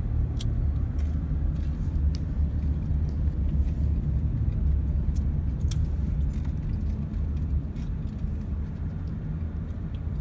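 Steady low rumble of road and engine noise inside a moving car's cabin, with a few faint clicks scattered through it.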